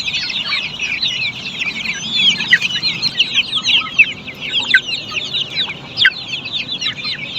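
A crowd of black Australorp chicks peeping continuously, many short high-pitched falling cheeps overlapping.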